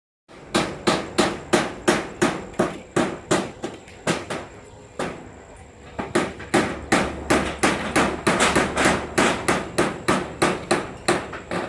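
Hammer blows in a steady run, about three strikes a second, pausing briefly about four seconds in and then carrying on.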